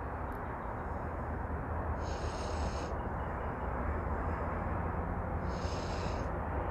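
Steady outdoor background rush, with a bird giving a short high call twice, about two seconds in and again near the end.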